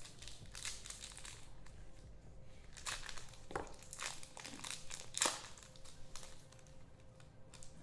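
Trading-card pack wrappers crinkling and tearing as packs are handled and opened by hand: several short rustles, the loudest about five seconds in.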